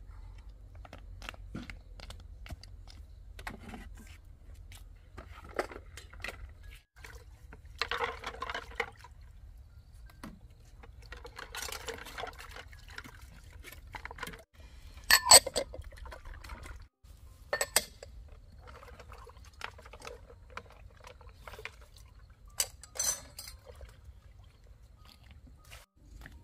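Water sloshing and splashing in a plastic basin as hands wash something in it, with scattered knocks and clinks. The loudest is a sharp clatter about fifteen seconds in.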